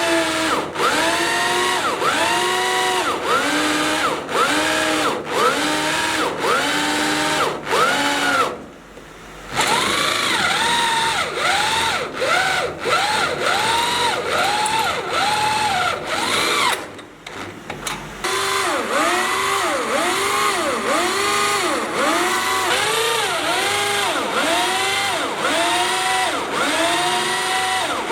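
Power drill boring into steel: the bit squeals with a pitch that rises and falls over and over, a little under twice a second. It pauses briefly twice, about a third and about two thirds of the way through.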